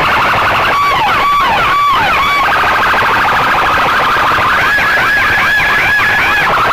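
Electronic siren or alarm cycling through its tone patterns: a rapid flutter, then short swooping chirps, then a fast pulsing tone from about two and a half seconds in, changing near the end to a rising-and-falling whoop about twice a second.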